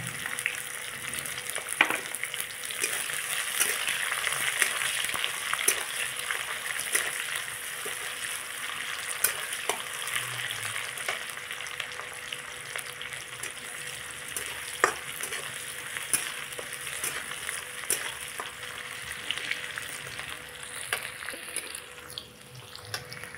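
Chopped onions sizzling in hot oil in a kadhai, stirred with a flat steel spatula that clicks and scrapes against the pan now and then. The sizzle eases off near the end.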